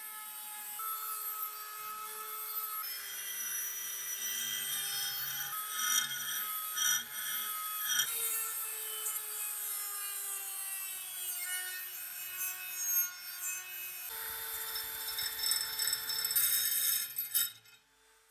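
High-speed rotary tool spinning a polishing bit against brass blowtorch parts. Its motor whine holds steady, shifting in pitch a few times, over a rubbing hiss, and it cuts off abruptly near the end.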